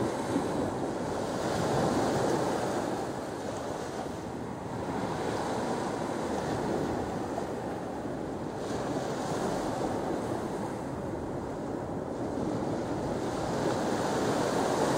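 Small waves breaking and washing up a sandy beach, the surf swelling and easing every few seconds.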